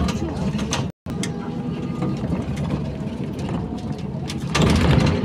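Interior noise of a BKM 321 trolleybus under way: a steady low rumble with rattles and clicks from the body, and a louder stretch of rumble near the end. The sound drops out for a split second about a second in.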